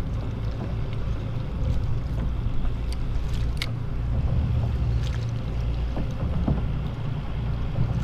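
Steady low rumble of wind and water around a kayak on open water, with a few light clicks and ticks in the middle.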